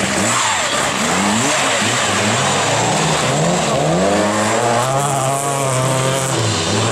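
Historic rally car engines revving hard, the revs rising and falling quickly through gear changes. About four seconds in a Ford Escort Mk2's engine climbs in one long rev and holds high, dropping away near the end.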